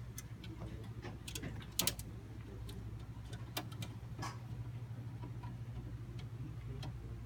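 Scattered light clicks and taps of computer parts and connectors being handled, the loudest a quick double click just before two seconds in, over a steady low hum.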